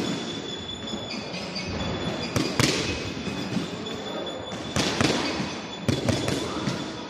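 Punches landing on a boxing focus mitt: three quick pairs of sharp smacks, over steady background noise.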